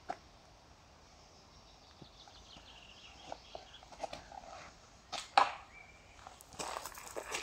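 A disc golf drive: a few faint scuffs on the tee, then one sharp whoosh a little after five seconds in as the disc is thrown.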